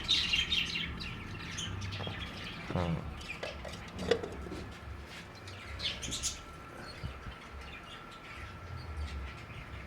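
Budgerigars in a colony aviary chirping and chattering in short bursts, busiest near the start and again around the middle, over a faint steady hum.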